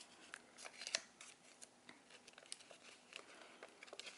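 Faint paper rustling and scattered light ticks as a folded paper envelope with a button-and-string closure is unwound and opened by hand, the sharpest tick about a second in.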